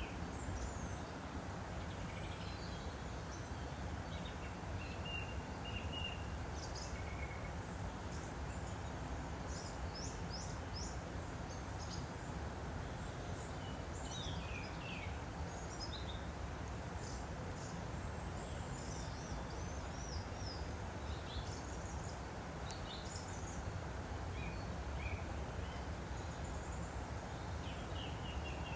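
Steady rush of a woodland stream flowing, with small birds chirping and tweeting in short high calls throughout.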